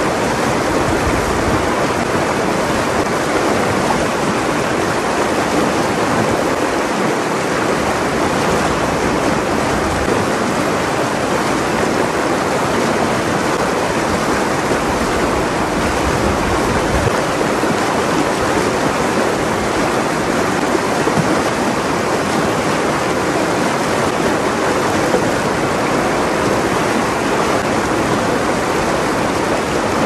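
Shallow rocky stream rushing steadily over stones and small riffles: a continuous, even sound of running water.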